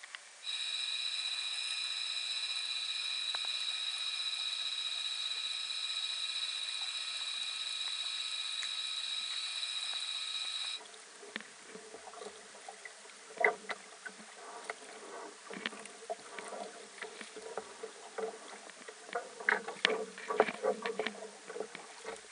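A steady high-pitched whine of several pure tones that holds for about ten seconds, then cuts off abruptly. After that come irregular knocks, clicks and rattles from a small sailboat's fittings under way, with water lapping at the hull. The knocks are loudest near the end.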